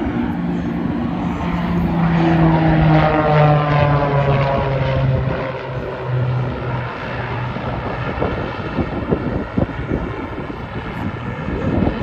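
Piston engines and propellers of three aerobatic biplanes flying past in formation. Their drone falls steadily in pitch as they go by, then gives way to a rougher, fainter rumble in the second half.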